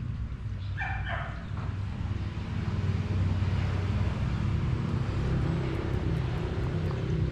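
A steady low rumble, growing louder about three seconds in, with a brief two-part animal call about a second in.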